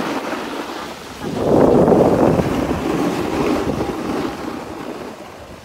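Skis sliding and scraping over packed snow, a grainy hiss that swells about a second in and fades toward the end, with wind buffeting the microphone.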